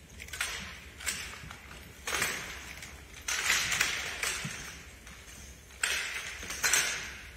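Drill rifles being slapped, spun and caught in unison by a drill team: about seven sharp cracks at uneven spacing, each ringing out briefly in the echo of a gym.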